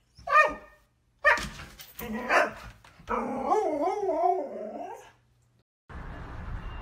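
A husky barks three short times, then gives a longer, wavering howl-like 'talking' call. Near the end the sound changes to a steady background hiss.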